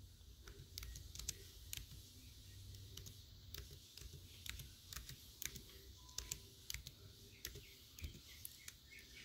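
Faint, unhurried typing on a computer keyboard: single keystrokes clicking at an irregular pace, about two a second.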